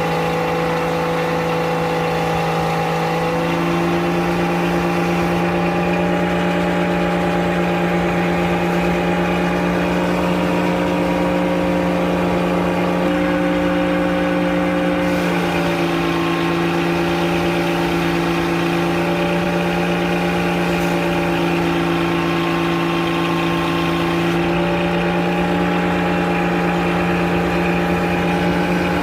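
Frick circular sawmill running steadily at a constant pitch, its tone shifting slightly a few times.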